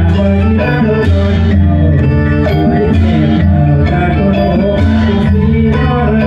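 Music with a steady beat, loud and continuous, with sustained instrumental notes.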